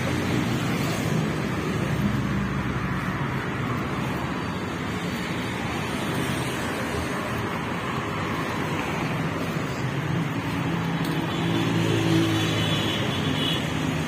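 City street traffic: cars driving past on the road with a steady rush of engine and tyre noise. About ten seconds in, one vehicle's engine hum grows louder for a few seconds.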